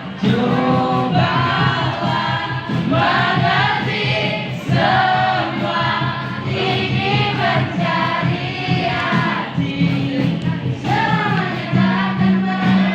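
Voices singing a melody together, like a small choir, over musical accompaniment that holds steady low notes.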